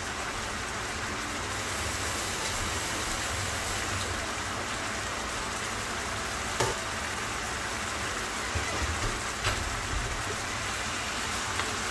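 Salmon steaks sizzling in their fish-sauce marinade in a nonstick frying pan, turned down to lower heat so the sauce simmers into the fish: a steady hiss with a few sharp pops.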